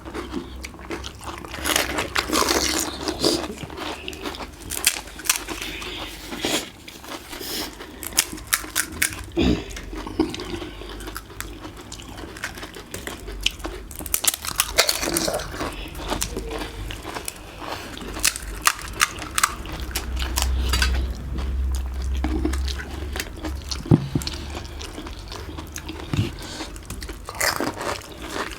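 Crisp, hollow panipuri shells crunching as they are bitten and chewed, many sharp crunches coming in irregular clusters.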